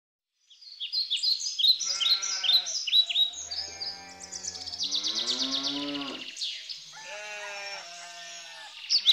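Animal calls: several long, wavering bleats over rapid, repeated high bird chirps.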